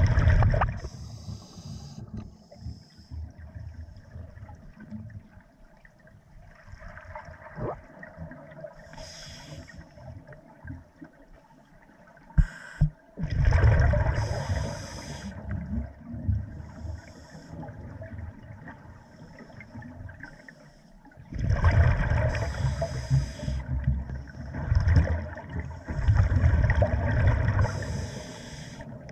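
Scuba diver breathing through a regulator underwater: exhaled bubbles rumble and gurgle past the microphone in several bursts of a few seconds each, with quieter watery noise between breaths.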